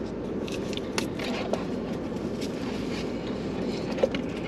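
Steady low hum in a car's cabin, with the rustle and clicks of cardboard takeout boxes and food being handled, and a short thump about four seconds in.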